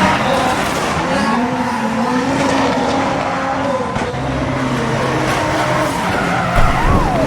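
Drift car engines revving, with tyres squealing as the cars slide.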